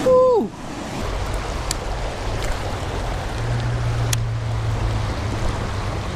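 Steady rush of flowing water with a low rumble, broken by two faint clicks.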